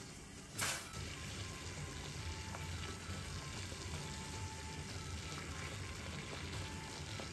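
Saucepan of water boiling hard around potato wedges: a steady bubbling hiss, with one brief louder splash-like noise under a second in.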